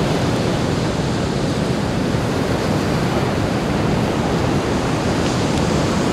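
Steady roar of wind and breaking surf, with the wind rushing over the microphone.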